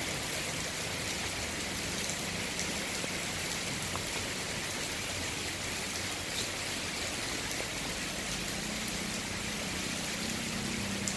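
Steady rain falling, an even hiss without any pattern.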